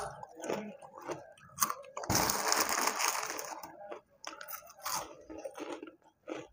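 Close-up crunching and chewing of Kurkure, a crispy corn-puff snack, in a series of sharp crackling bites; the loudest, densest crunching comes about two seconds in.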